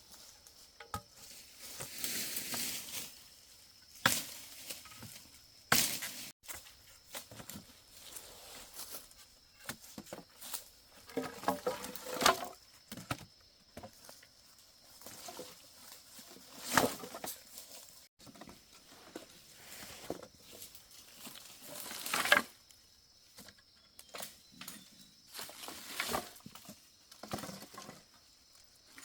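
Dry branches and leaf litter rustling and cracking as firewood is handled, with about five sharp snaps spread through and softer rustles and knocks between them.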